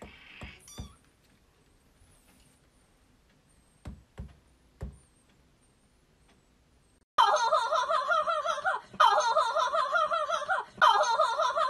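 A few faint soft taps over quiet, then a loud warbling comic sound effect that starts abruptly about seven seconds in and plays three times, each time about two seconds long.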